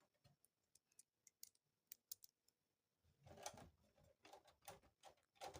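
Faint ticks of a screw and screwdriver against a computer case's metal, then from about three seconds in a denser run of clicking and rattling as a screw is driven in to mount the power supply.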